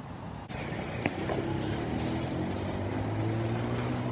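A small tipper truck's engine running as it drives across the rail tracks, its note rising slightly and then holding steady, over road noise.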